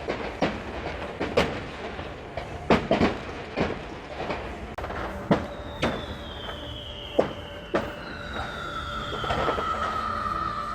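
Fireworks going off: irregular bangs and pops throughout, and from about six seconds in, whistling fireworks giving long whistles that slide slowly down in pitch, several overlapping.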